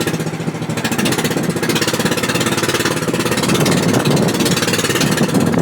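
An engine running with a fast, even pulsing, getting a little louder over the last couple of seconds.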